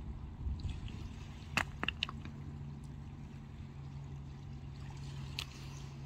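Low steady rumble and hum of an approaching car ferry's engines, over small waves lapping at a rocky shore. A few short sharp high sounds come about one and a half to two seconds in, and once more near the end.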